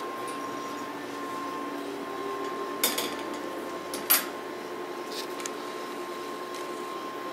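Wire pet cage clinking: two short sharp metallic knocks about three and four seconds in, with a few fainter taps after.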